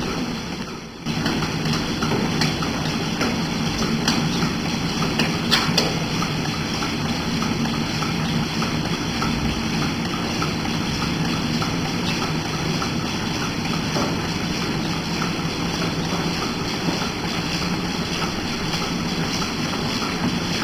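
Milking machine running in a parlour: a steady hum and hiss from the vacuum system, with faint ticks throughout. The sound drops out briefly about a second in, then carries on.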